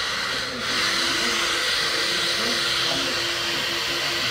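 Handheld hair dryer blowing, aimed at a reclining client's face: a steady rushing hiss that dips briefly about half a second in, then comes back a little louder with a steady motor hum.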